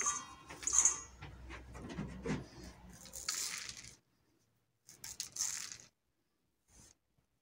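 Dried Artemisia annua flower heads and leaves being stripped from their stems by hand: a dry rustling and crackling, with the loose bits falling onto cardboard. It comes in bursts, with a pause after about four seconds, then a shorter burst and a brief one.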